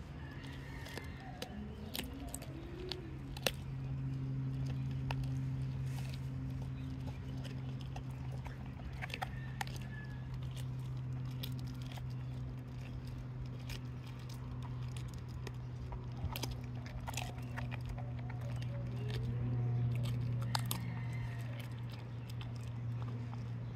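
A husky/Keeshond mix chewing a raw chicken foot, with scattered sharp crunches and clicks of bone between its teeth. Underneath runs a steady low hum that grows louder about twenty seconds in.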